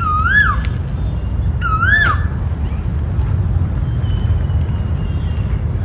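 Asian koel calling twice, about a second and a half apart, each a clear note that rises and then drops away sharply. Under the calls is a steady low rumble, and there are faint high chirps.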